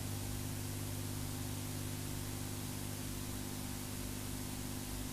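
Steady hiss with a low electrical hum underneath, the background noise of an old analogue video tape recording; no other sound stands out.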